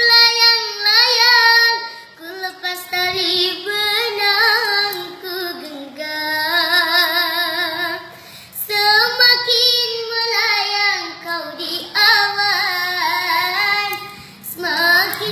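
A child singing solo in a high voice: long, ornamented phrases of a Malay-style ballad, with vibrato and melismatic runs, broken by short pauses for breath.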